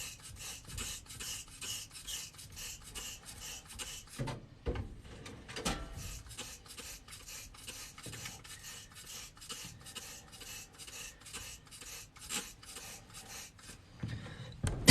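Hand trigger sprayer squirting liquid cleaner onto an air-conditioning evaporator coil, in quick, even squirts about four a second, with a short pause about four seconds in.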